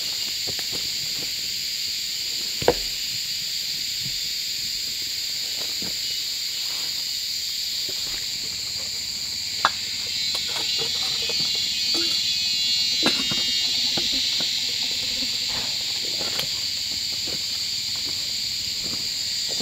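Steady high-pitched chorus of forest insects, crickets or cicadas, with a few sharp knocks, the loudest about two and a half and nine and a half seconds in, and scattered fainter clicks.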